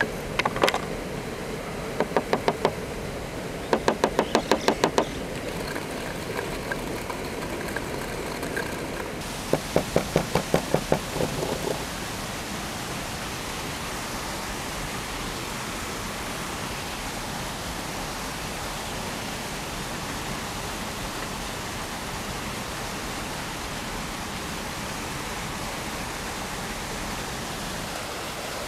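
Knife chopping on a cutting board in four quick bursts of rapid, even strokes during the first twelve seconds, over a steady hiss that carries on alone afterwards.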